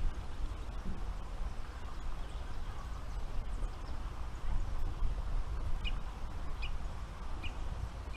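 Steady low wind rumble on the microphone, with four short high chirps in the second half, spaced a little under a second apart.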